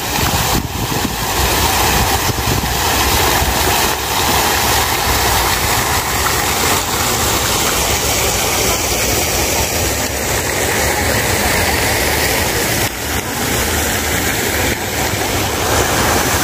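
Steady rushing spray of a fountain's many jets falling into its round basin, with a low rumble underneath.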